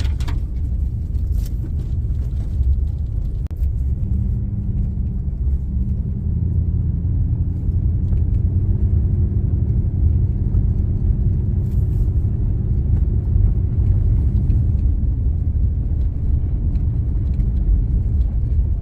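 Low, steady rumble of a vehicle being driven, with a faint steady hum joining in about four seconds in.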